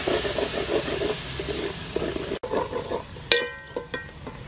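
Fish sauce sizzling in hot oil with a fried chili and garlic paste, stirred in a metal pot with a wooden spoon. After a sudden break, the sizzle is quieter, and a sharp metallic clink rings briefly about three seconds in.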